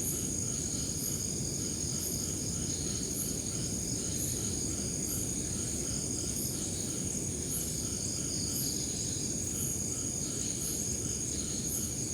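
Crickets and other night insects trilling steadily, with a short high chirp repeating about once a second over a low rumble.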